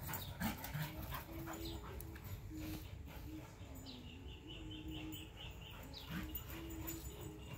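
Husky whimpering in a string of short, low, drawn-out notes, repeating about once a second.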